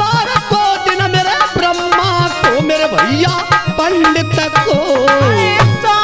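Bhajan music played on an arranger keyboard: a tabla-style drum rhythm runs under a melody line that glides and bends in pitch.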